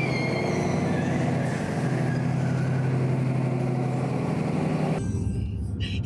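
Steady low hum of a vehicle engine running in an underground parking garage, with a brief high squeal that rises near the start. About five seconds in it changes abruptly to the duller rumble inside a car.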